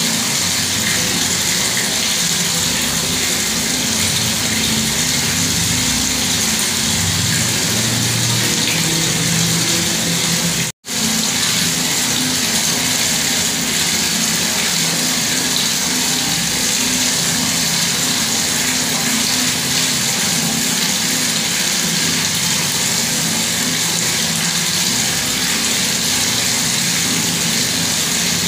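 Water running steadily from a bathroom tap, an even rushing hiss. It cuts out for a split second about eleven seconds in.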